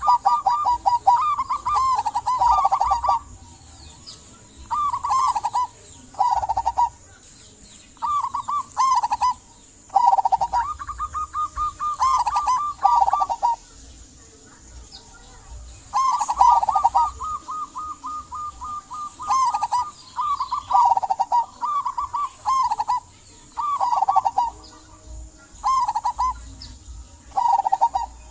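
Zebra dove (local-type perkutut) cooing: short phrases of quick, rippling coos, one every second or two, with pauses of a few seconds between groups.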